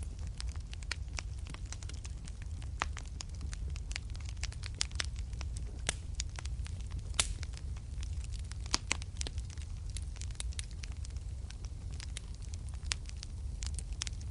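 Wood fire burning in a fireplace: a steady low rumble of the flames with frequent irregular crackles and pops, one sharper pop about halfway through.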